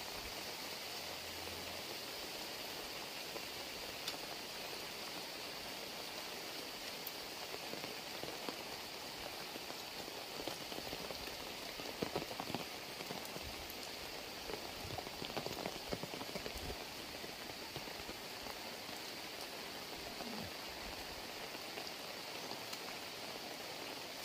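Heavy rain falling steadily, a continuous even hiss, with a cluster of short, louder close taps about halfway through.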